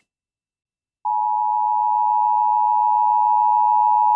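Emergency Alert System attention tone for a flash flood warning: after about a second of silence, a loud, steady, unwavering high tone comes on and holds. It signals that an emergency warning is about to be read.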